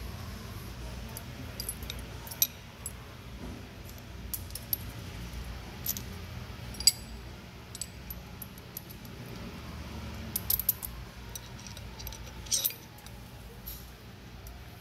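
Chrome sockets, a socket extension and a long-handled wrench clinking and clicking as they are handled and fitted together, a scatter of sharp metallic clinks over a steady low hum.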